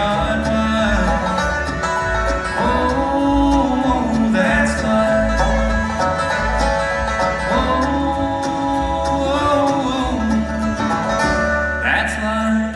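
Live bluegrass band playing: fiddle, five-string banjo, acoustic guitar, mandolin and upright bass together.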